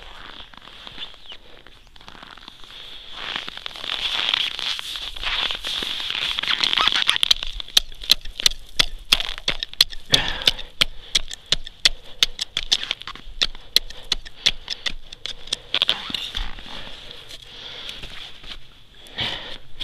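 Sharp, crunchy clicks on thin frozen river ice, about three to four a second. They grow loud from about seven seconds in and die away after about sixteen seconds.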